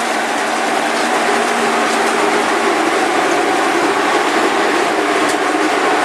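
A stationary hop-picking machine running, a steady loud mechanical din with a constant hum under it.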